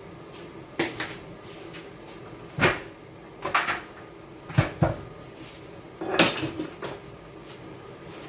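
Kitchen clatter: a handful of sharp knocks and clunks of cookware and containers being handled and set down, spaced irregularly, with a close pair about halfway through.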